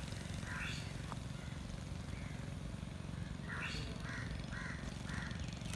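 Crows cawing in a short run of calls, several about half a second apart, over a steady low background rumble.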